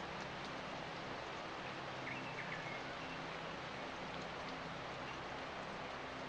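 Countryside ambience: a steady, even hiss like falling rain or running water, with a few faint high chirps about two seconds in.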